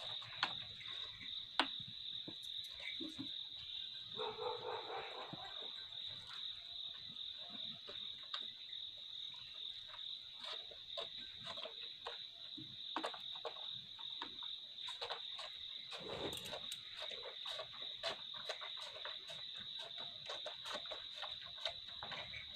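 Insects chirring as a steady high-pitched drone, with scattered light clicks and knocks over it and a short low pitched call about four seconds in.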